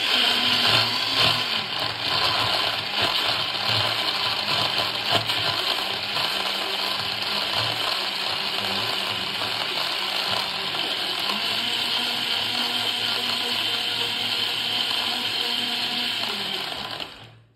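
Bosch countertop blender running, blending ice cubes and frozen berries with banana and yogurt into a smoothie; louder and uneven for the first couple of seconds, then a steady whir as the mix turns smooth, switching off just before the end.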